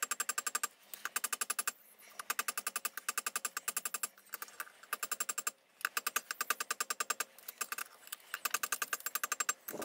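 Hammer striking a hot railroad spike on a railroad-track anvil in quick, light, evenly spaced blows, in runs of about a second with short pauses between them; each blow rings like struck steel. It is the blade of a spike knife being forged and shaped.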